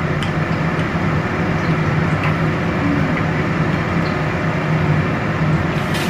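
A steady rumbling noise with a low hum running underneath, with a few faint light clicks.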